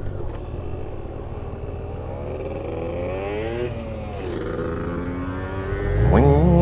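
Motorcycle engine running on the road, its pitch rising and falling with throttle and speed. A louder sound swells in suddenly near the end.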